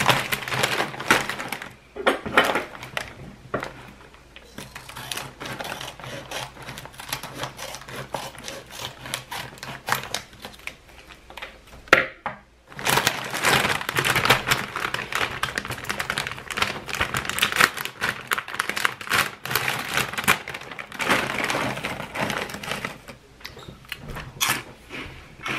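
Foil-lined plastic bag of shrimp crackers crinkling and crackling as it is handled and pulled open, in dense fast crackles with a short pause about halfway. Then more rustling and crunching as the crackers are taken out and eaten.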